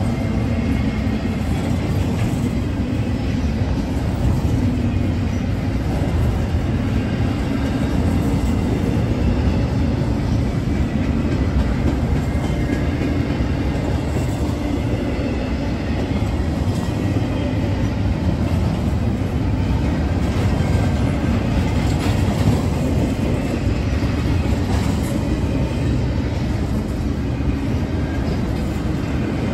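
CSX intermodal freight train passing at close range: a steady rumble of wheels and cars on the rails.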